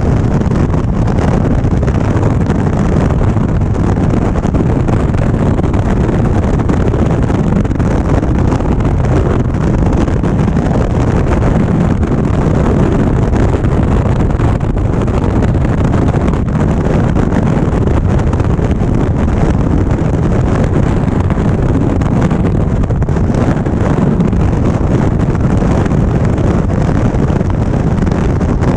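Steady wind rushing over the microphone of an Indian Springfield motorcycle at riding speed, with engine and road noise mixed in underneath.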